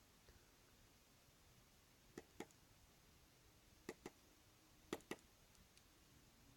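Three quick double taps of a stylus on the NCR NotePad 3125 pen tablet's screen, sharp little clicks over near silence.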